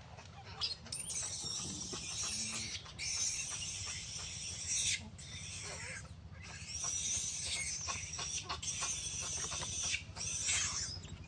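Baby long-tailed macaque crying: a run of long, shrill screams, one after another with brief breaks between them.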